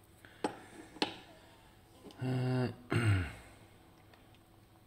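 Two sharp clicks, then a man's wordless vocal sounds: a held hum and a short falling grunt, like clearing his throat.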